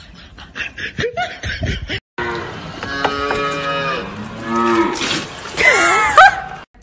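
A calf mooing in several drawn-out calls that waver in pitch, loudest near the end. It is preceded for about two seconds by a quick run of light taps.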